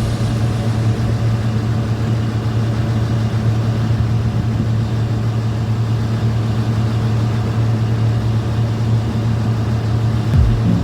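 Heavy machine's engine running steadily at an even speed, a constant low hum with no change in pitch; a light knock near the end.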